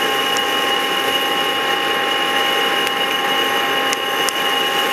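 Electric coffee roaster just switched on and running steadily, a hissing whir with a constant whine on top, green coffee beans rattling in its glass roasting chamber.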